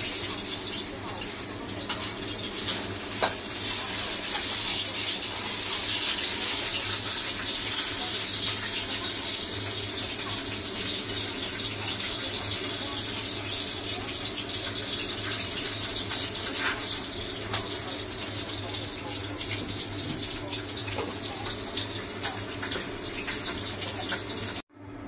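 Steady running-water noise with a low hum underneath, and a faint click about three seconds in.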